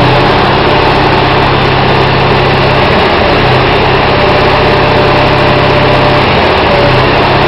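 Everdigm ETP1017 stationary concrete pump running steadily with a loud engine hum, which dips briefly about every three and a half seconds.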